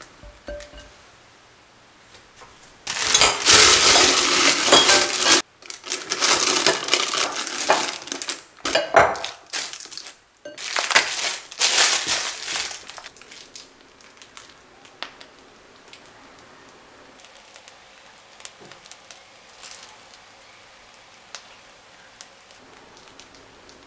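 Piping bag crinkling and rustling loudly as it is filled with mascarpone cream and twisted closed, in three long stretches over the first half. After that there are only faint, soft handling clicks while the cream is piped.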